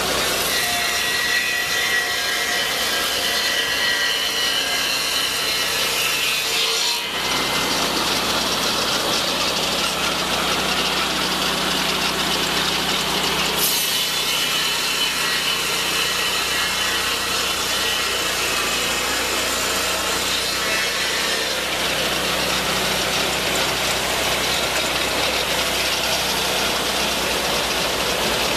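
Lucas swingblade sawmill cutting lengthwise through a log: the mill's engine runs steadily under load while the circular blade saws through the wood.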